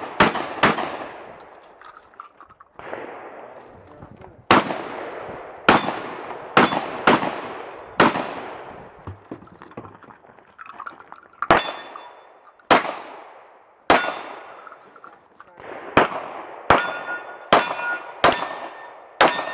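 A string of single gunshots from a competitor firing through a 3-gun stage, about one a second with a pause partway. Several shots are followed by the brief ringing of struck steel targets.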